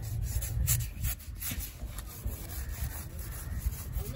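A long knife slicing and scraping through a stingray's flesh along the skin, in several irregular strokes.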